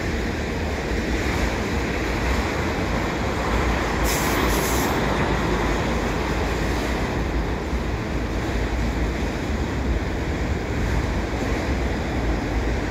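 Freight train rolling past with covered hoppers and autorack cars, a steady rumble of wheels on rail. A brief high hiss comes about four seconds in.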